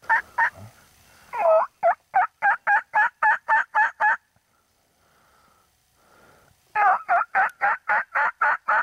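Turkey yelping: two long runs of short, evenly spaced yelps, about four a second, each note dropping in pitch, with a pause of a couple of seconds between the runs.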